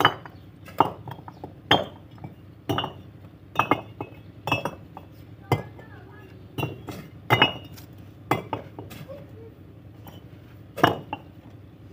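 Fired clay bricks clinking against one another as they are picked off a pile and set down, a sharp ringing knock about once a second.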